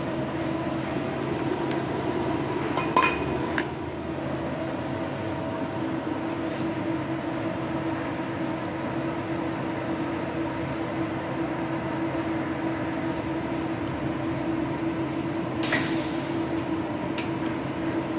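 WIM TA501i MIG/MAG welding machine switched on and running idle: a steady hum and cooling-fan drone with a steady tone. A click about three seconds in and a short burst of hiss near the end.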